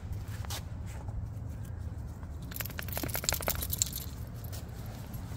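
Small metal jingling, rapid light clinks about two and a half seconds in and lasting about a second: a dog's leash clip and harness hardware rattling as the dog moves. A steady low rumble runs underneath.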